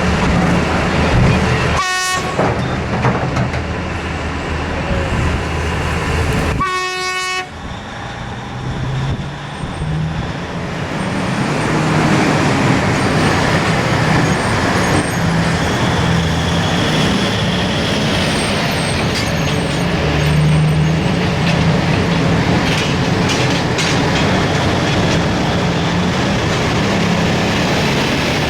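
Heavy mining machinery working: the engines of a large Liebherr R9350 mining excavator run steadily under load. Two short horn toots sound about two seconds and seven seconds in.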